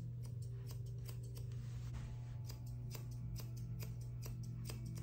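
Dog-grooming shears snipping a Bichon puppy's facial hair: a steady run of crisp snips, about two to three a second, over a steady low hum.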